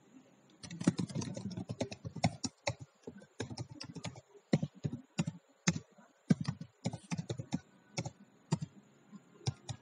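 Computer keyboard typing: irregular keystrokes in quick runs with short gaps between them.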